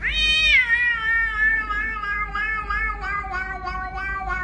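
Grey cat giving one long, drawn-out meow that jumps up at the start, then slides lower and wavers in pitch.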